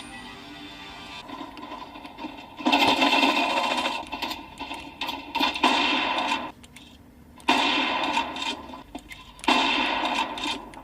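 Video game sound effects: loud noisy stretches that start and stop abruptly, about three seconds in, again at seven and a half seconds and at nine and a half seconds, over a quieter steady background.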